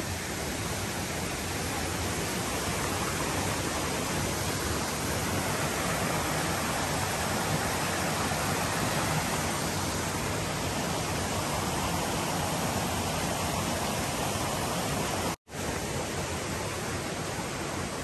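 Steady rush of a stream running over rocks. It cuts out completely for a split second about fifteen seconds in.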